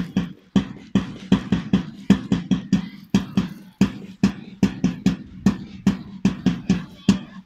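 A drum beaten in a fast, steady rhythm, about four strokes a second.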